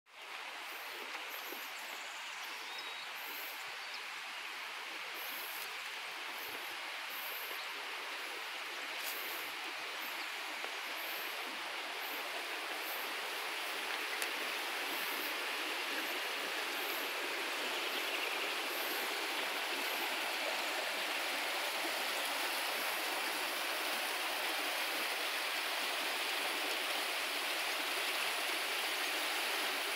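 Steady rush of a stream or small waterfall in the ravine below, slowly growing louder.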